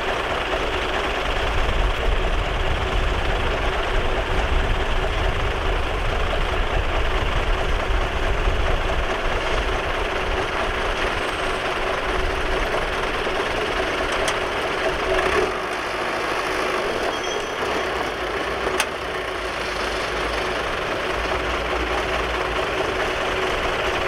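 Heavy diesel engines of a small crawler bulldozer and a Hyundai dump truck running steadily with a deep rumble while the dozer tows the stuck truck on a cable. A single sharp click comes late on.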